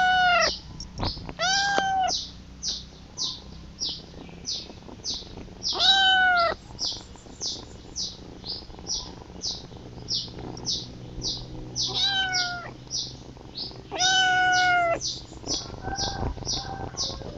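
Young kitten crying for its mother: about five loud, high-pitched meows at uneven intervals, the longest lasting about a second. Short high chirps repeat about twice a second underneath throughout.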